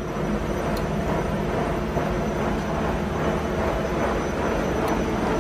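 Air fryer running: a steady fan whir with a faint constant hum, mid-way through cooking.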